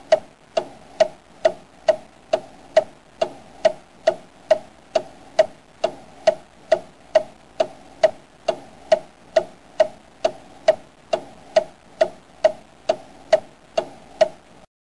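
Clock ticking steadily, a little over two even, sharp ticks a second.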